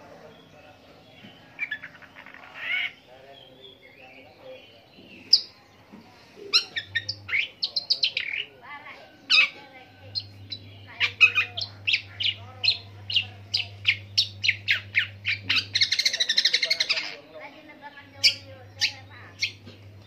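Long-tailed shrike singing a long, varied song of sharp chirps and whistles, the imitations of other birds' calls this species is kept for. A fast run of short notes builds to a dense trill about 16 seconds in, then single calls resume.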